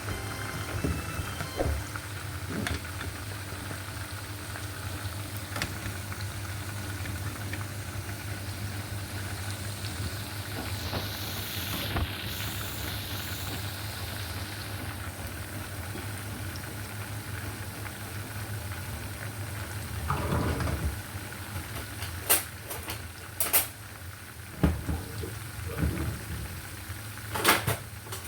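Grated onions frying in hot oil in a pot: a steady sizzle over a low steady hum, with stirring and a few sharp clinks of a utensil against the pot near the end.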